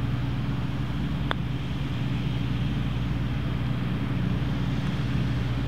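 A steady, low engine drone runs throughout. About a second in comes a single sharp click: a putter striking a golf ball.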